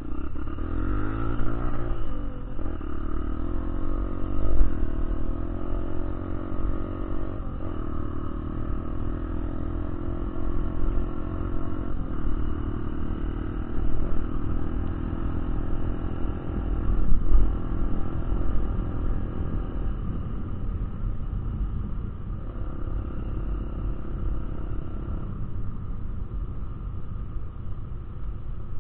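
Off-road motorcycle engine running hard on a ride, heard from on board. It revs up in the first couple of seconds, then holds a fairly steady pitch with small throttle changes, over a heavy low rumble.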